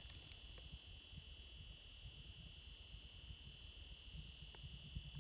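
Near silence outdoors on the ice: a faint low wind rumble on the microphone under a steady high-pitched whine, with one faint click about four and a half seconds in.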